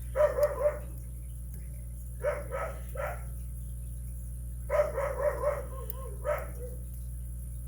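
Dog barking in four quick runs of three or four short, sharp barks each, with pauses between the runs.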